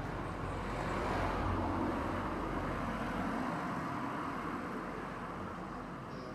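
A car driving past on the road, its tyre and engine noise swelling about a second in and then slowly fading away.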